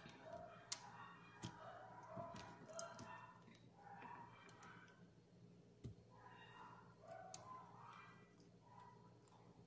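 Faint eating sounds from a person chewing fish: scattered sharp mouth clicks and lip smacks.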